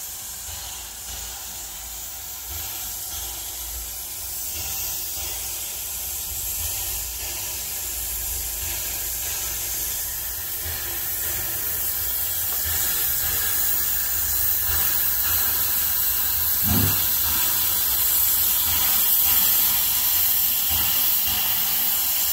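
Steam hissing steadily from the LB&SCR A1X Terrier 0-6-0 tank locomotive 'Knowle' as it drifts slowly into the platform, growing louder as the engine draws near. A short low thud comes about three-quarters of the way through.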